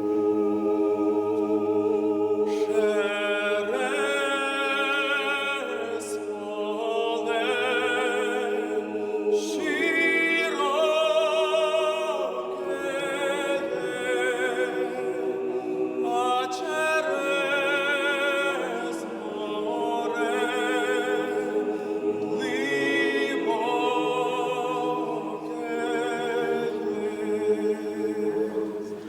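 Choral singing: a choir sustains long chords beneath a solo voice singing with a wide vibrato.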